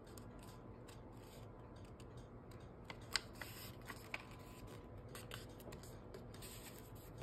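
A sheet of origami paper being folded in half and creased by hand: faint rustling with a few soft crackles, the clearest about three and four seconds in.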